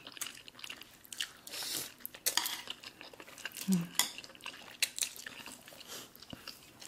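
Two people slurping and chewing saucy black bean noodles, with wet mouth smacks and many short, light clicks. A brief hummed "mm" comes about midway.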